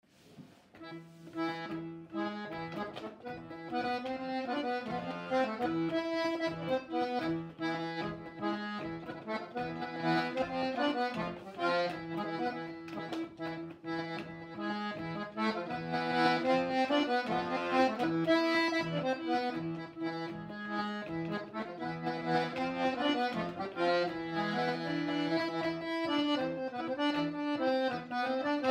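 Diatonic button accordion playing a bourrée, a French traditional dance tune: a lively melody over sustained bass notes.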